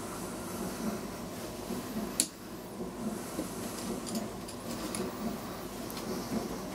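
Steady low room hum with a regular faint pulsing, broken by one sharp click a little over two seconds in and a few faint ticks later on.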